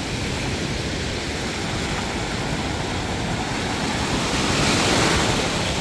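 Ocean surf rushing on a beach, a steady wash of breaking waves that swells louder about four to five seconds in as a bigger wave comes through.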